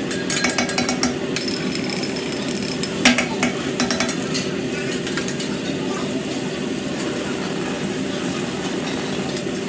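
Metal spatulas scraping and clattering on a flat steel teppanyaki griddle as vegetables sizzle. A quick run of clicks comes in the first second, and there is a single sharp clank about three seconds in.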